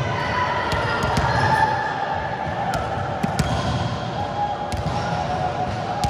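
Volleyballs bouncing and thudding on a sports-hall floor, a scatter of sharp knocks over steady echoing hall noise.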